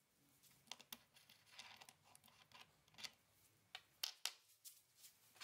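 Faint, scattered clicks and scrapes of small metal parts being handled as the clamping flange nut comes off the spindle of a VITALS Ls 1814HLv angle grinder. A few sharper clicks land about four seconds in.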